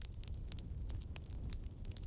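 Pine cones crackling as they burn in a small wood-chip camp stove: irregular sharp pops and ticks, several a second, over a low steady rumble.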